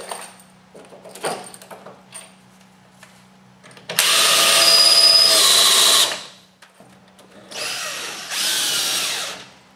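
Cordless drill/driver with a 7/16-inch socket driving crate bolts into a plywood panel: one loud run of about two seconds starting about four seconds in, then a second, quieter run near the end.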